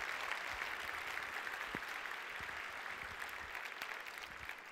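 Audience applauding, a dense patter of many hands clapping that gradually thins and fades toward the end.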